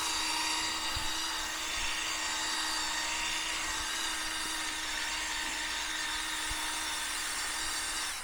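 Cordless drill spinning a wire brush against a concrete floor, scuffing up the surface: a steady motor whine over a scraping hiss, which cuts off suddenly at the very end.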